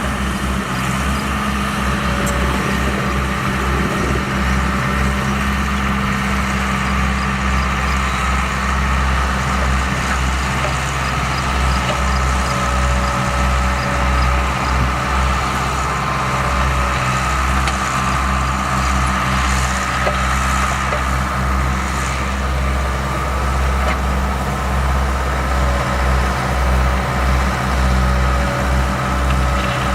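Diesel engine of heavy excavation equipment running steadily, with a constant high whine over the low engine note.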